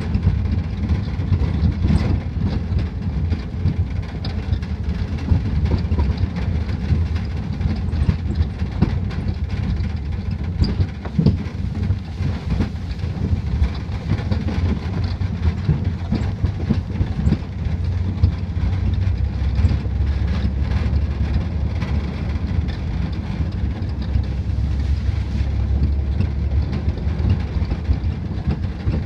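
Pickup truck driving along a rough, rutted dirt track, heard from the open bed: a steady low rumble with frequent rattles and knocks from the truck going over bumps.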